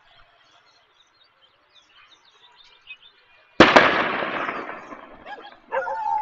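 A single sharp, loud bang about three and a half seconds in, echoing away over a second and a half, with faint bird chirps before it. Near the end comes a drawn-out, wavering whine.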